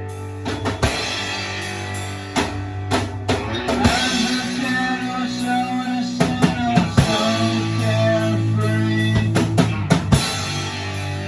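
Rock band jam: guitar and bass holding chords over a drum kit, with scattered drum hits and fills and a guitar lead line weaving through the middle.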